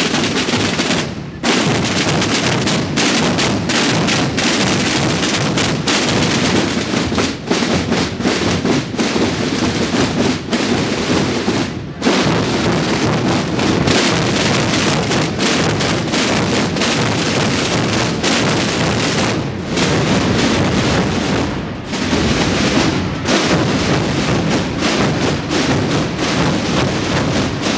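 Massed bombos and snare drums of many drum corps playing together in a dense, continuous drum roll, broken by brief pauses a few times.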